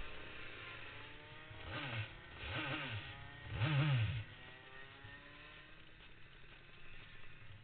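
Rotax Max 125cc two-stroke kart engine revved in three short blips, each rising and falling, the third the loudest, with the kart going nowhere because the clutch has given up. Afterwards the fainter drone of other kart engines sliding down in pitch.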